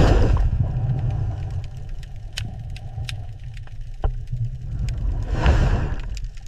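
A deep, steady mechanical rumble, opening with a sudden hit, with scattered sharp clicks and a swelling rush of noise about five and a half seconds in.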